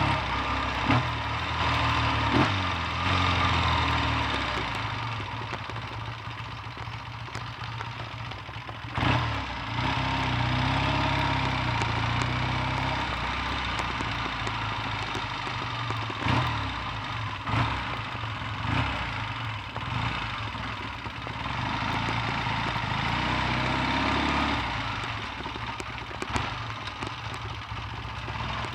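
Triumph T140V's 750 cc parallel-twin engine running on the road, its note rising and falling several times as it accelerates and changes gear, over a steady rushing noise. There are a few sharp knocks along the way.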